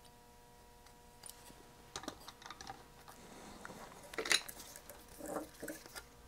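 Irregular clicks, knocks and light clatter of a bare circuit board being handled and set into the jaws of a PCB holder, starting about two seconds in, with the loudest knock a little past the middle.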